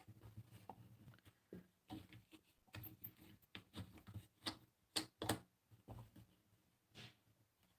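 Faint, irregular clicks and soft scratches of hand embroidery: a needle popping through fabric held taut in a hoop, with the thread drawn through.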